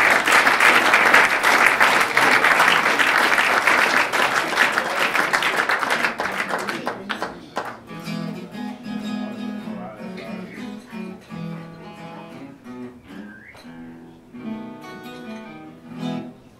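An audience applauding, loud at first and dying away after about seven seconds. Then an acoustic guitar plays a few strummed chords on its own.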